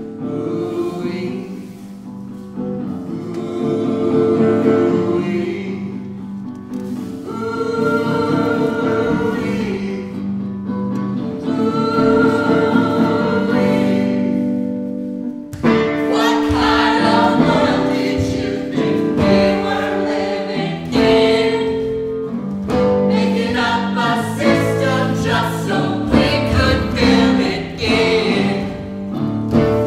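Music with group singing: long held notes for about the first half, then, about halfway through, a busier passage with a beat.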